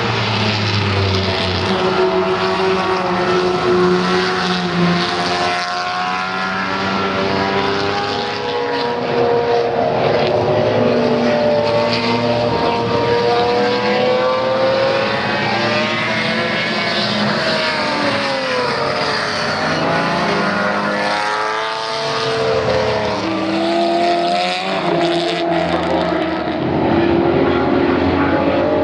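Broadspeed Jaguar XJ12 Coupe race car's 5.3-litre V12 engine running loud under load, its pitch rising and falling over and over as the revs climb and drop, with a brief dip a little after two-thirds of the way through.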